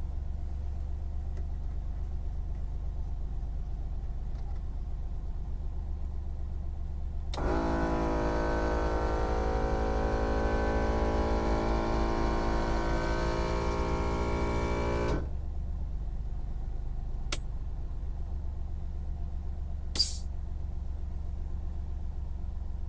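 A machine's steady low hum, joined about seven seconds in by a strange droning noise of many tones at once that lasts about seven seconds and then cuts off suddenly: the abnormal noise. A light click follows, and near the end comes a short, sharp hiss, the loudest sound.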